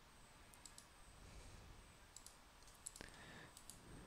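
Faint computer mouse clicks, several in quick pairs and threes, over low room hiss.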